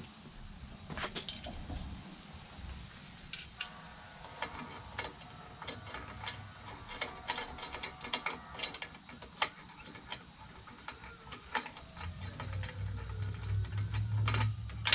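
Hand tool and metal clicking and ticking as a quad's stock exhaust heat shield is bolted back on, in scattered short clicks. A low hum comes in near the end.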